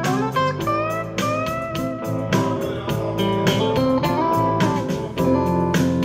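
Guitar music with notes sliding in pitch over a steady drum beat, played through a pair of Definitive Technology ProMonitor 1000 bookshelf speakers as a sound test.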